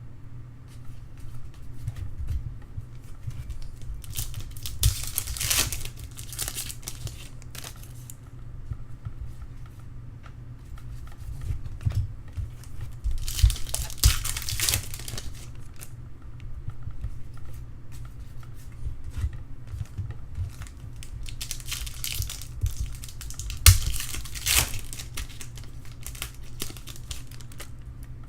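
Foil trading card pack wrappers crinkling and being torn open, with cards being handled, in three bursts over a steady low hum.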